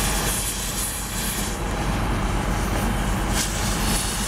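Heavy construction machinery running steadily: a low diesel-engine rumble, most likely the mobile crane's, under a continuous hiss that fits a gas cutting torch working on a steel column.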